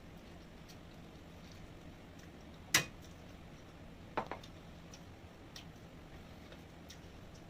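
Eating sounds: a few sharp clicks and taps from food and cutlery, the loudest about three seconds in and a quick pair just after four seconds, over a faint steady hum.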